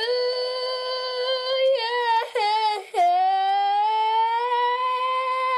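A solo voice singing a wordless tune in long held notes: a high note held for nearly two seconds, a few quick wavering notes, then a lower note held and slowly rising.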